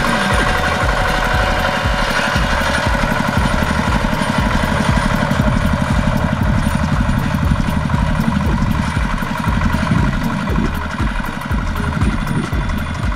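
Single-cylinder diesel engine of a two-wheel walking tractor running steadily, with a fast low pulsing beat, as the tractor pushes a tine rake through loose rice straw.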